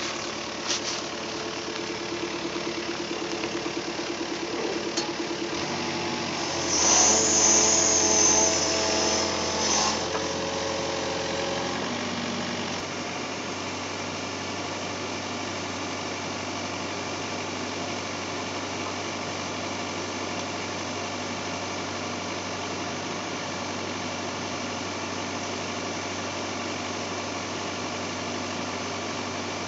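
Excavator diesel engine idling steadily. From about six and a half to ten seconds in it grows louder, with a high whine and several steady tones, as the machine's hydraulics are worked under load, then settles back to an even idle.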